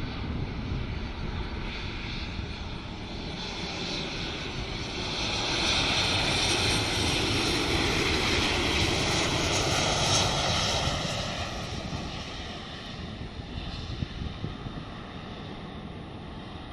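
Airliner passing close on its landing approach: a rushing engine noise that swells, is loudest around the middle, then fades away.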